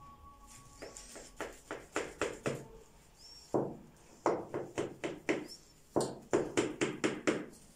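Knife cutting through layered phyllo pastry in a metal baking pan: an irregular run of short taps and scrapes as the blade strikes the bottom of the pan, coming faster and louder in the second half.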